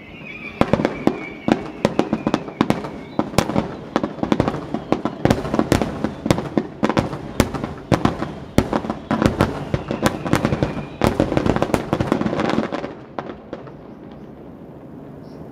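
Fireworks bursting in a rapid, dense barrage of bangs and crackles that stops abruptly about thirteen seconds in, leaving a steady low background rumble.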